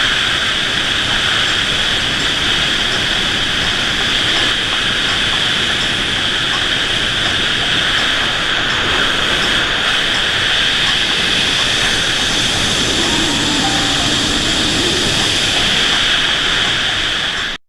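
Steady, loud rushing noise that cuts off abruptly at the end.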